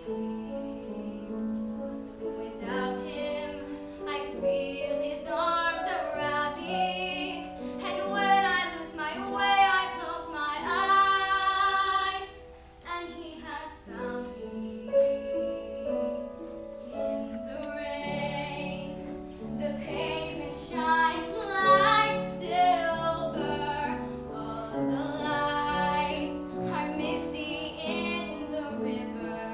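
A young woman singing solo with vibrato over sustained instrumental accompaniment. The singing breaks off briefly about twelve seconds in, then resumes.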